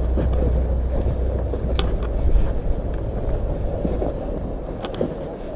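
Wind buffeting the phone's microphone, a steady low rumble, with a few faint clicks, about two seconds in and again near the end.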